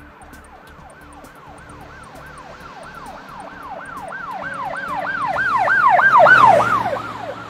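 Electronic emergency-vehicle siren on a fast yelp, its pitch sweeping up and down about three times a second. It swells steadily louder to a peak about six seconds in, then drops away quickly.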